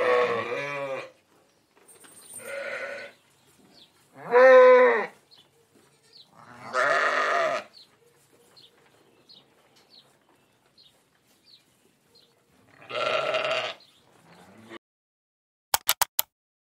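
Sheep bleating: about five separate bleats, each a second or less, some with a wavering pitch. A quick run of four sharp clicks comes near the end.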